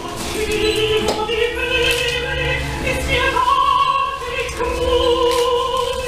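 Background music of sung voices holding long, slow notes.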